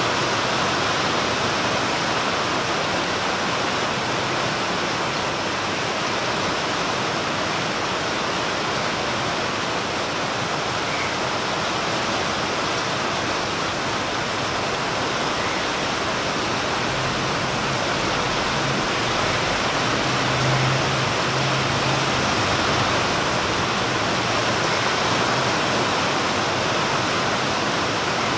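Steady rain falling on leafy trees, a constant even hiss. A low hum joins for a few seconds past the middle.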